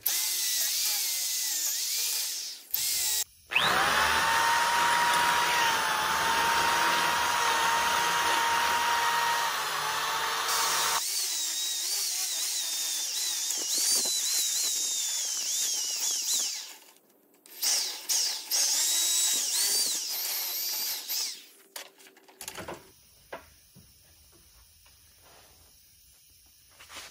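Electric hand drill boring into the old wooden handle stub lodged in a rake's metal socket, the motor whining steadily. It runs in long spells with a brief stop about three seconds in and another around seventeen seconds, then stops about twenty-two seconds in.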